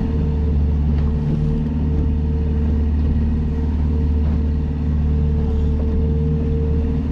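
Small fishing boat's motor running steadily under way, a loud, even drone.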